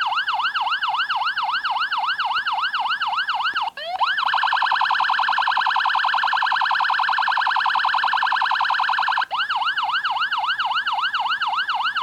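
Electronic police siren from a strobe-light siren unit: a fast yelp sweeping up and down about three to four times a second, switching a little under four seconds in to a much faster, rapid warble, then back to the yelp about nine seconds in.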